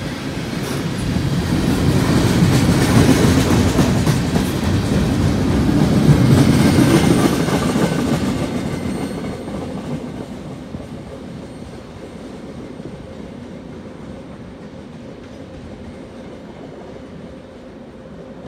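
Freight cars of a Union Pacific train rolling past, loud for the first seven seconds or so, then fading away as the end of the train draws off down the line.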